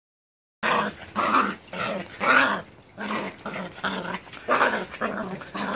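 Puppies almost eight weeks old play-fighting, growling in a string of short growls about two a second, starting about half a second in.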